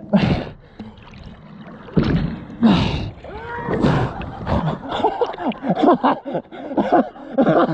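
Water splashing and lapping around a camera held at the water's surface, with louder splashes, the loudest about three to four seconds in as water is thrown up at the base of an inflatable water blob. Voices call out in the background.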